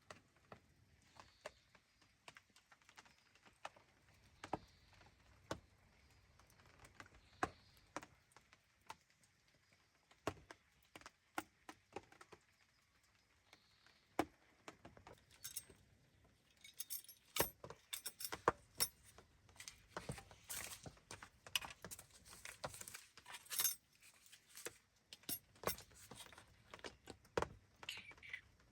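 Scattered small clicks and clinks of objects being handled, sparse at first and getting busier about halfway through.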